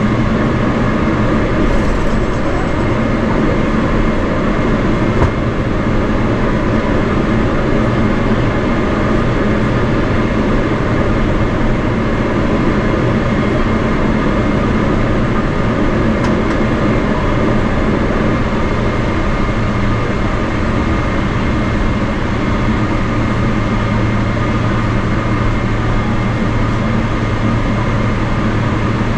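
Steady cabin drone of a Boeing 777-300ER taxiing after landing: its GE90-115B engines run at low thrust, heard through the cabin wall along with a steady low hum.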